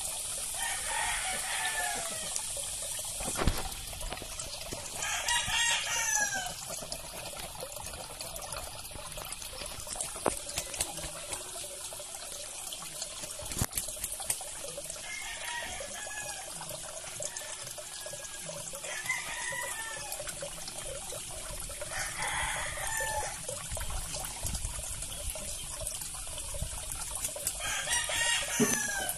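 Roosters crowing again and again, about six calls, over a steady trickle of water running into a koi pond.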